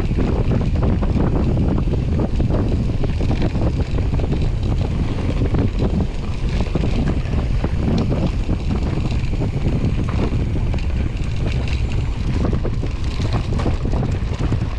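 Wind buffeting the microphone while a mountain bike rolls fast down a rough trail, with a constant dense clatter of tyres and bike over rocks and roots.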